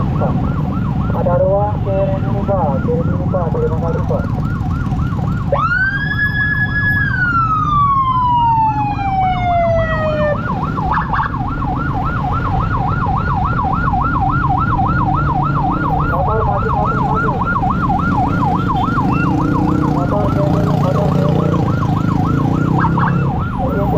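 Emergency siren on a fast yelp, about five cycles a second, over the low rumble of engines in stalled traffic. About five seconds in it switches to one long wail that rises sharply, holds for a moment and falls away slowly over about three seconds, then the fast yelp returns.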